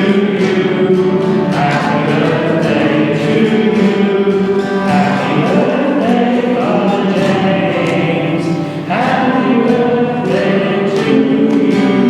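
A choir singing Christian music, with long held notes changing every second or two and a brief break about nine seconds in.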